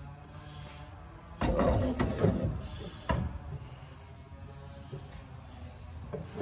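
Metal clatter and scraping as a large steel pipe wrench is handled and put down, loudest about a second and a half in, followed by a single sharp knock about three seconds in.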